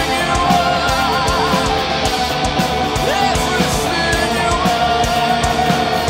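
Live rock band playing: a male voice sings with wide vibrato over distorted electric guitar and a drum kit keeping a steady beat.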